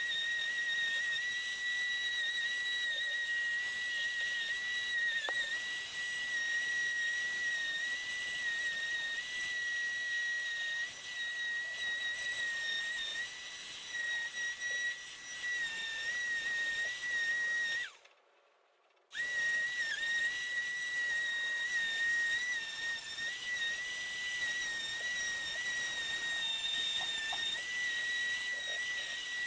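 Power sander running with a steady high whine, with small dips in pitch, smoothing cured body filler on a plastic dashboard. It cuts off about 18 seconds in and starts again a second later.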